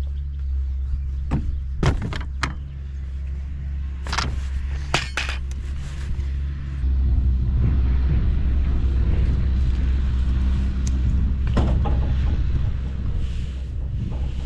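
A vehicle engine running steadily, with several sharp clanks and knocks over it; the engine gets louder about seven seconds in.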